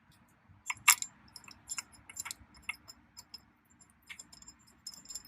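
Irregular light metallic clicks and clinks of bolts and hand tools being handled while fitting a steering-wheel hub, with one sharper click about a second in.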